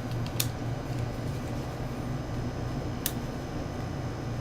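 Lens cover switch on a Sony HDR-CX190 camcorder clicking twice, open and then shut, about two and a half seconds apart. A steady low hum runs underneath.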